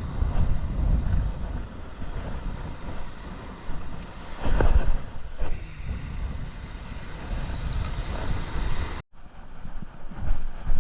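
Wind gusting across the microphone in uneven rumbling buffets, strongest about four and a half seconds in. The sound cuts out for a moment about nine seconds in.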